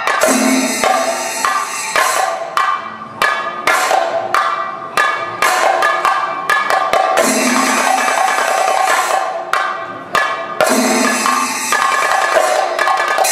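Thayambaka on chenda drums played with sticks: a dense, fast stream of strokes broken every second or so by sharp single accents, over the steady ringing of elathalam hand cymbals.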